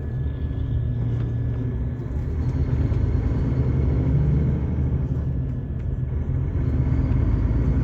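Volvo D13 13-litre inline-six diesel engine of a Volvo 9800 coach running with a steady low rumble that swells slightly in loudness partway through.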